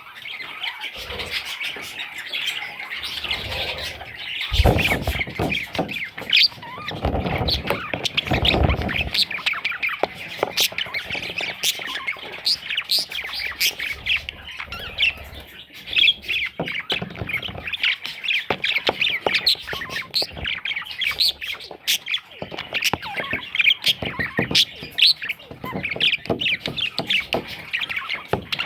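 Parrots chattering and squawking without a break, with many quick calls overlapping. A few low thuds come about five to nine seconds in.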